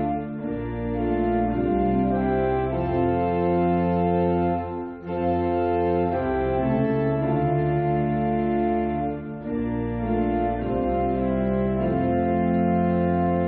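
Music of slow, held chords on an organ- or brass-like sound, with brief breaks between phrases about five and nine seconds in.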